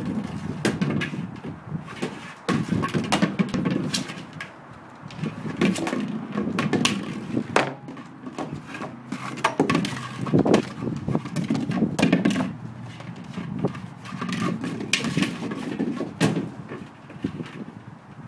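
Large toy egg knocking and scraping on wooden deck boards as a dog pushes and bites at it: irregular sharp knocks, over an uneven low rumble.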